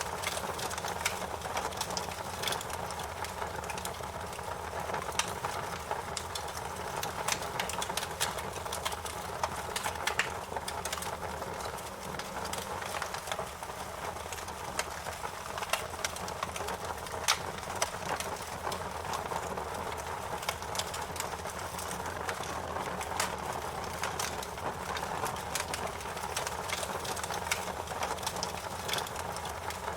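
Wood fire crackling in a fireplace: irregular sharp pops and snaps over a steady hiss and low rumble of burning.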